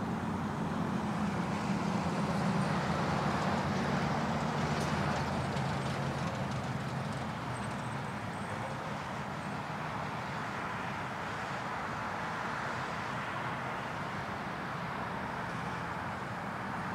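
Passing motor traffic: a low engine rumble, loudest over the first few seconds and fading by about six seconds in, over a steady outdoor traffic hiss.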